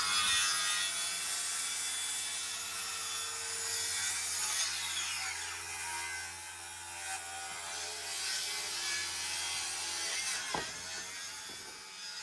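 A power saw cutting through lumber in one long run of about twelve seconds. The motor's pitch shifts as it works through the wood.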